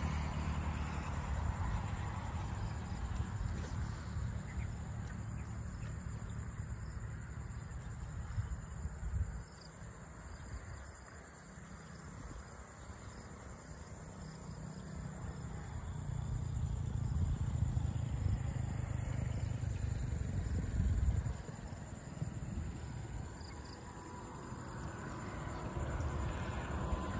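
Outdoor field ambience: a low rumbling noise that rises and falls, dropping suddenly about two-thirds of the way through, with faint steady insect chirring high above it.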